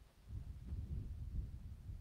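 Faint, uneven low rumble of handling noise on a hand-held camera phone's microphone as the phone is shifted.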